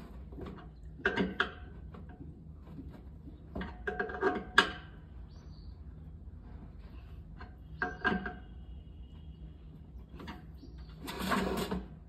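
Scattered metal knocks and clinks, some with a short ringing tone, as tools and parts are handled while taking apart a washer-dryer, with a longer scraping rattle near the end.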